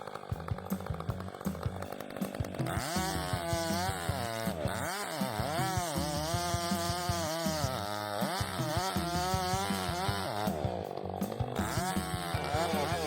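Chainsaw running at high speed and cutting, its engine pitch repeatedly dipping and rising again as the chain bites into the wood and frees up.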